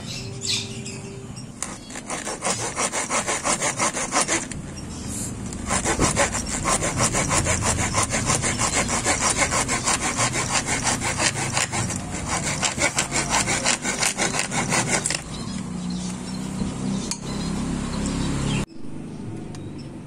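Small hand saw cutting through an old wooden broom handle with rapid, even back-and-forth strokes, stopping abruptly near the end.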